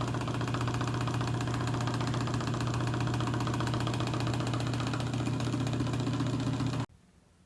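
Small electric clip fan running steadily after its motor was repaired, a low even hum with the blades turning. It cuts off abruptly about seven seconds in.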